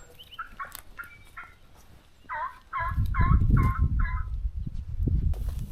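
Turkey yelps: a few faint notes, then a run of five louder yelps about a third of a second apart. A low noise runs underneath from about halfway through.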